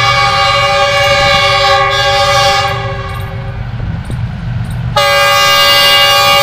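Horn of an approaching GEU40 diesel-electric locomotive: one long blast that fades out a little past halfway, then a second long blast starting about five seconds in, over a low rumble from the train.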